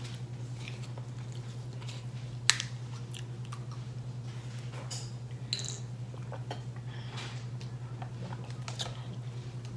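Drinking from a plastic water bottle: a sharp click about two and a half seconds in, then scattered small clicks and swallowing noises. A steady low hum runs underneath.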